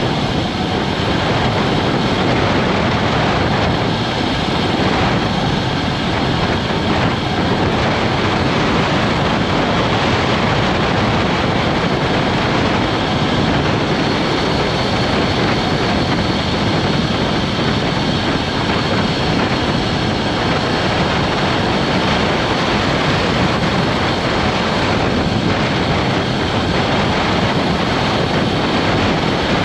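Steady, loud wind noise across a GoPro Hero 9's microphone while riding a road bike at speed on asphalt, with tyre noise mixed in.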